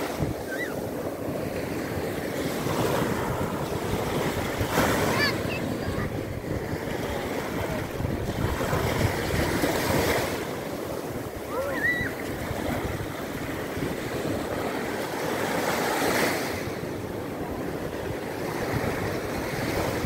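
Small sea waves breaking and washing up a sandy beach: a steady hiss of surf that swells and eases every several seconds as each wave breaks and runs in.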